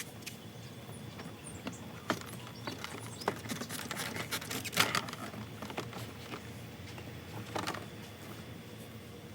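Scattered light clicks and knocks of hand tools and plastic door-trim parts being handled during car door disassembly, with a few sharper taps about two, three, five and near eight seconds in.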